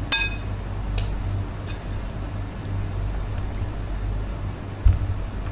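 Flour and yeast being mixed by hand in a glass bowl, with a sharp ringing clink of glass at the start, a lighter clink about a second in and a dull knock near the end, over a steady low hum.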